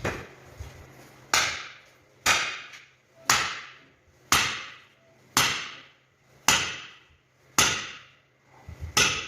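Eight heavy blows on wood, evenly spaced about a second apart, each a sharp strike with a short ringing decay: steady work on the axe and its new wooden handle.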